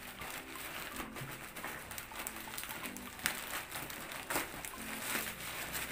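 Plastic courier mailer bag crinkling and rustling as it is handled and pulled open, with a few sharp crackles of the plastic, the loudest about three seconds in and again past four seconds.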